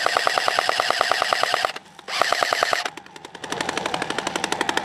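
A&K M249 SAW airsoft electric gun firing full-auto: a long burst of about a second and a half, a short pause, then a shorter burst. Near the end, quieter rapid full-auto fire follows.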